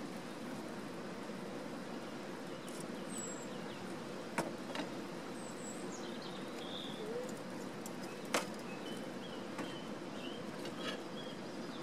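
Outdoor ambience: scattered short bird chirps and whistles over a steady low hum, with a couple of sharp clicks.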